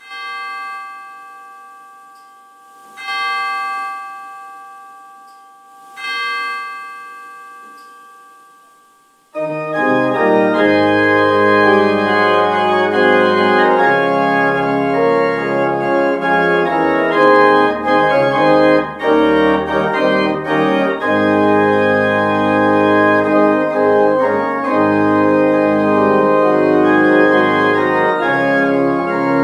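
Three chime tones struck about three seconds apart, each ringing and dying away. About nine seconds in, a pipe organ comes in loud, playing full sustained chords over deep pedal notes: the closing postlude of the service.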